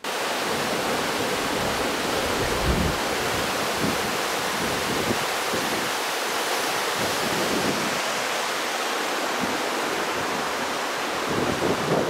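Mountain waterfall cascading over rock slabs and ledges: a steady rush of falling water.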